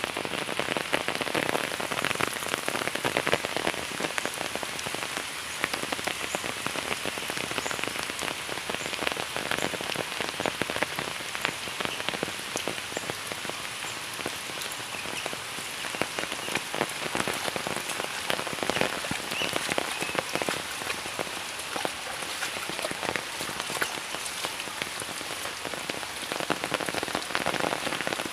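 Steady rain falling, a dense even patter of drops with no break.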